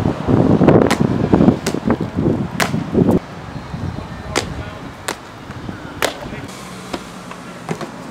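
Loud wind buffeting the microphone for about the first three seconds. After that comes a run of sharp taps, roughly one a second, over a quieter outdoor background.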